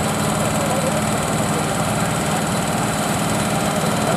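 1963 Güldner A2KS Spessart's two-cylinder 880 cc diesel running steadily under load as the tractor drags the pulling sled, with an even, rapid firing beat.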